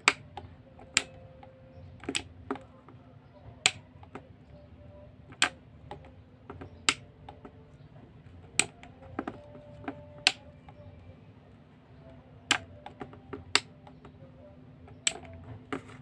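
A two-gang rocker light switch being flipped on and off repeatedly: about fifteen sharp single clicks at uneven intervals, each one switching one of two light bulbs on or off.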